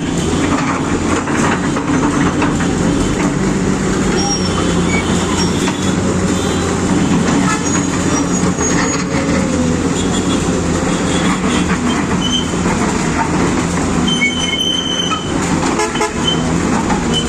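A heavy engine running steadily, with short high beeps or toots scattered through.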